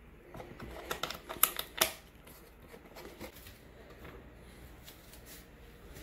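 Light clicks and knocks of things being handled on a kitchen counter, a quick cluster of them in the first two seconds with two sharper knocks near its end, then only faint scattered ticks.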